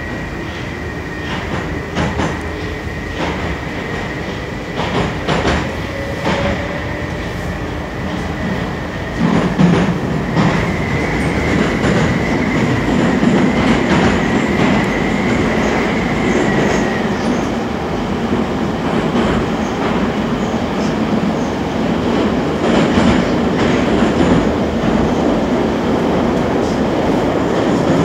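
Moscow metro train running, heard from inside the carriage: a steady rumble and rattle of wheels on rail, with scattered clicks and a thin high whine during the first half. The running noise grows louder about a third of the way through and stays up.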